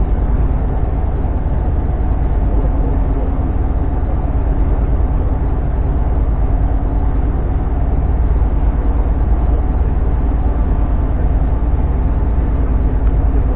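A boat's engine running steadily, heard from on board: a constant low drone with an even rumble under it.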